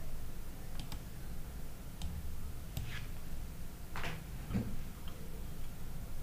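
Computer mouse clicking, a handful of short sharp clicks spread irregularly, over a low steady background hum.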